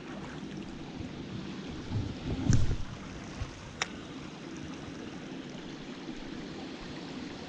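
Small creek's water running steadily, with a low thump about two and a half seconds in and a single sharp click near four seconds.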